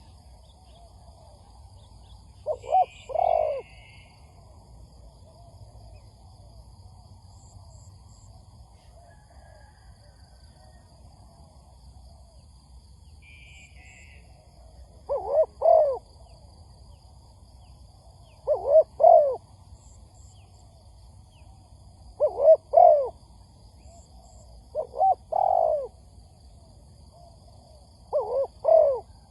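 Spotted dove cooing in short phrases of two or three low coos. There are six phrases, the first alone near the start and the rest coming every three or four seconds after a long gap. Faint high chirps of another small bird come twice.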